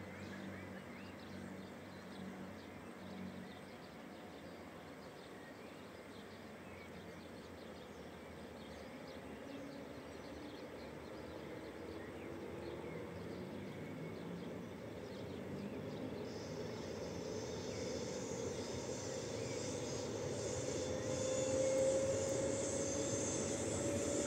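Electric S-Bahn train pulling away and accelerating, heard across the river: the traction motors give a whine that rises slowly in pitch and grows louder. A rushing hiss joins about two-thirds of the way through.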